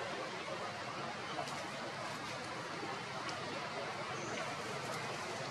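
Steady outdoor background noise with a faint short high chirp about four seconds in.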